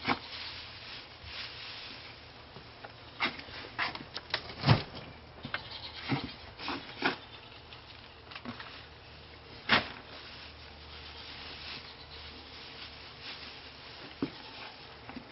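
Dry hay being pulled and torn from a bale by hand, rustling with scattered crackles and sharp snaps, the loudest a little under five seconds in and near ten seconds.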